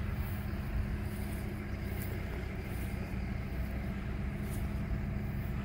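A steady low engine hum holding one pitch, over a low rumble.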